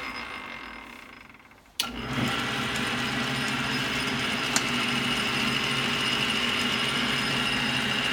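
Montgomery Ward (Logan) lathe's motor and belt drive winding down, then a sharp click about two seconds in as the switch is thrown to change the spindle's rotation, and the lathe starting up again and running steadily with a low hum and a high whine.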